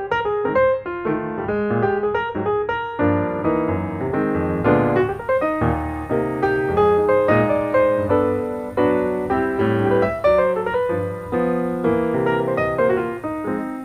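Background piano music: a steady run of quick piano notes over a moving bass line.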